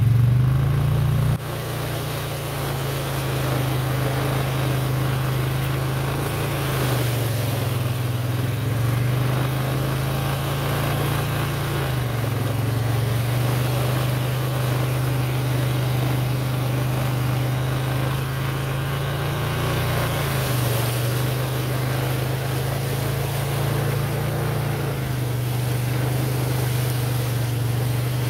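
ATV engine running at a steady, held throttle, its pitch dipping briefly a few times as the throttle eases and picks up again.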